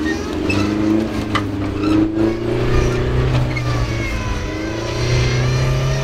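Off-road trial truck's engine revving under load as it crawls over rocks, the revs rising and falling several times.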